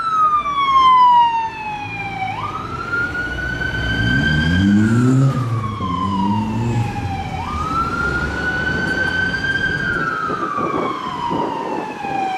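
Scania fire engine's siren sounding a slow wail: each cycle jumps up, climbs slowly, then falls away over a few seconds, about five seconds per cycle, growing fainter after the first second or so as the appliance moves off. An engine revs up and down underneath around the middle.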